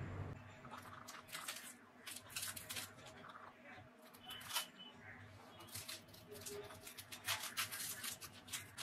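Faint, scattered crackles and rustles of soft sesame slider buns being pulled apart.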